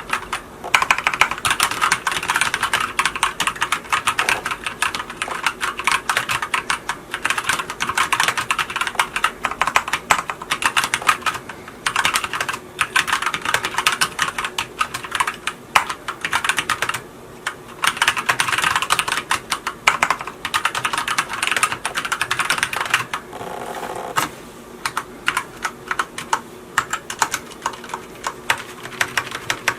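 Continuous fast typing on a Micronics WARP WK3 tenkeyless mechanical keyboard with Manic brown tactile switches: a dense clatter of keystrokes, with a brief lull midway and lighter, sparser typing near the end.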